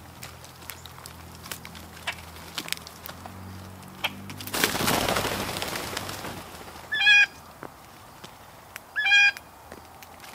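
A flock of grackles and blue jays flushes off the ground in a sudden rush of wingbeats about four seconds in, and two short nasal, mewing bird calls follow about two seconds apart. Light pecking and hopping clicks sound throughout.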